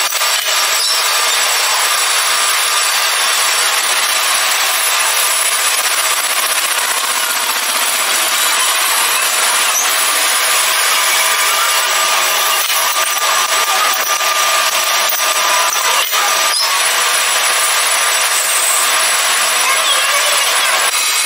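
Steady rasping of a workshop power tool cutting or abrading metal, with a faint steady whine over it and a few light ticks.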